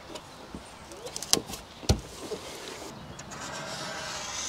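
A paper drilling template being handled and pressed against a van's sheet-metal fender: two sharp taps, then a steady rustling rub that grows louder near the end.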